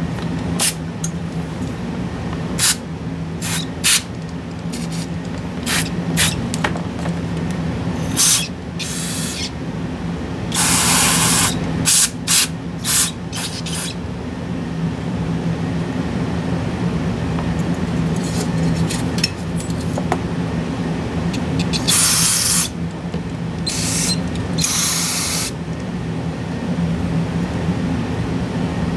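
Short hissing blasts from an aerosol spray can with a straw nozzle aimed at a graphics card's fan and heat sink. The longest blast lasts about a second, near the middle, and two more come later. There are scattered small clicks and taps throughout, over a steady low hum.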